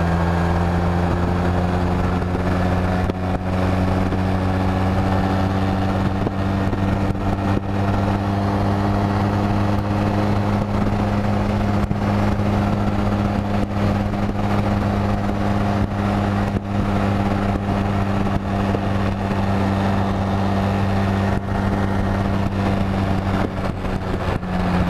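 Honda Rebel 250's air-cooled parallel-twin engine running steadily at cruising speed, with a constant rush of wind and road noise. The engine note dips slightly in pitch near the end.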